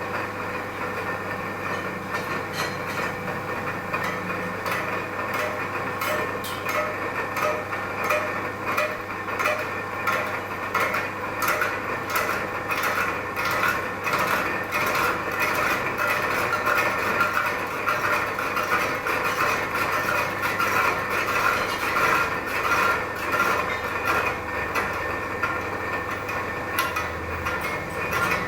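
A plate being worked down to size: continuous rasping and scraping with many quick clicks, over a steady low hum.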